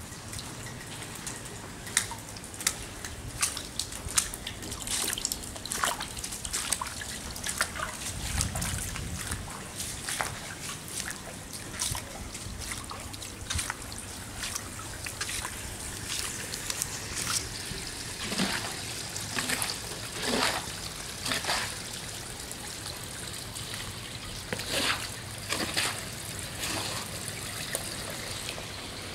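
Floodwater trickling and dripping around a flooded footpath, with scattered sharp splashes throughout, the loudest a few seconds in.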